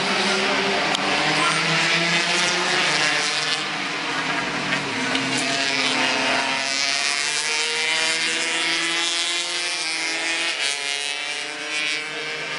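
Several go-kart engines running together as a pack of karts laps the circuit, their overlapping notes shifting in pitch with the throttle.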